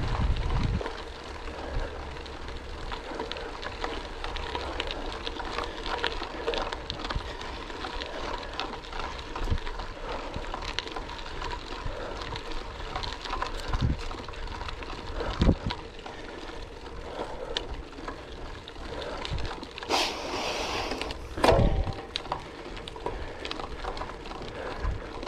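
Gravel bike tyres rolling over a gravel track, a steady crunching hiss with many small clicks and rattles from the bike. About twenty seconds in there is a louder, harsher rush of noise lasting a second or two.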